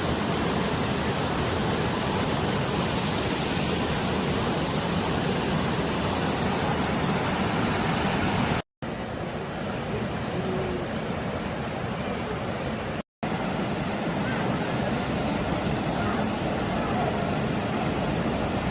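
Mountain valley stream flowing, a steady rush of water. It cuts out twice for a moment, about nine and thirteen seconds in.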